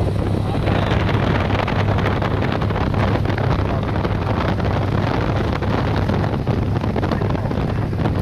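Light aircraft's propeller engine heard from inside the cabin as the plane rolls along a gravel airstrip after landing: a steady low drone with a constant hum.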